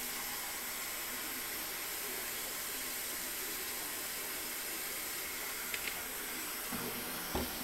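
Kitchen faucet running a steady stream of water into a stainless steel bowl of catfish fillets in the sink, a constant hiss of splashing water.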